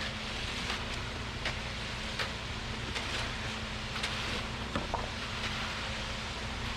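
An engine running steadily, likely the concrete mixer truck, with faint short scrapes and knocks recurring every half second to a second from tools working the wet concrete.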